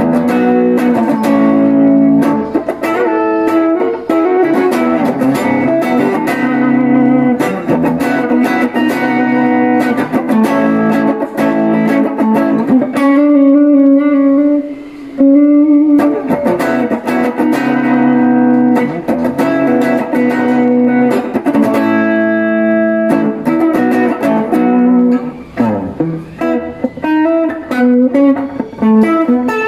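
Telecaster-style electric guitar played through a Boss ME-80 multi-effects unit on an ambient distortion patch, picking a melodic lead line with frequent string bends and a long held note about halfway through.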